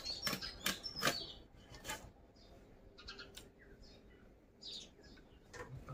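Fish steaks being cut on an upright bonti blade over an aluminium bowl: a few sharp cutting clicks in the first two seconds. Small birds chirp in the background throughout.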